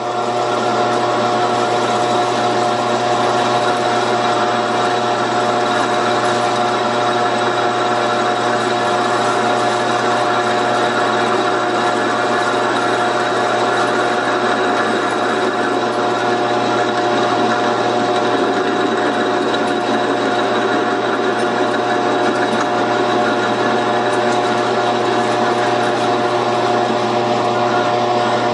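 Metal lathe running at a steady speed with a steady whine, while a carbide cutter on a hand-guided cone-cutting attachment turns aluminum round stock into a cone.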